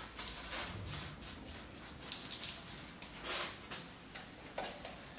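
Paintbrush scrubbing a wet cementitious slurry coating onto rough concrete in separate short, scratchy strokes.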